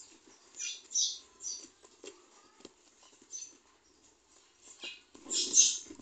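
Pencil lead scratching on paper in short, irregular strokes as a drawing is sketched, with the loudest strokes about five seconds in.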